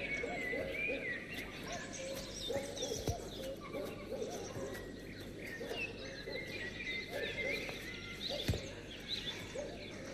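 Rural birds calling: a steady chorus of short repeated calls, some low and some high and chirping, with a soft knock about three seconds in and a sharper one near the end.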